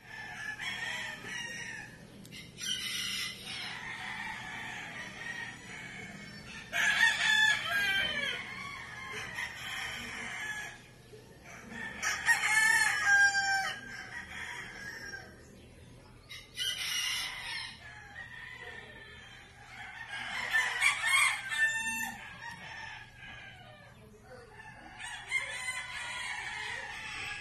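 Roosters crowing about six times, each crow a second or two long and several seconds apart, with chickens clucking in between.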